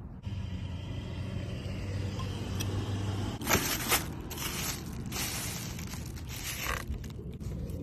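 Packaging being handled during an unboxing: rustling and scraping, with two sharp crackles about three and a half seconds in and more rustling after, over a steady low hum.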